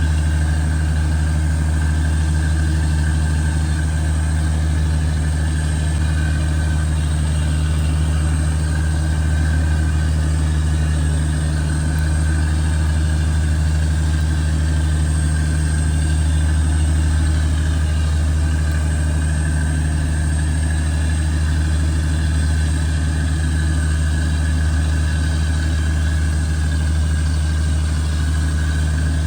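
Fishing boat's engine running steadily at a constant speed, a loud even drone with a deep hum and a fainter high whine.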